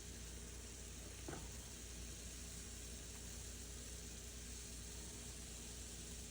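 Shrimp sizzling faintly and steadily in a hot pan, with one light tap about a second in.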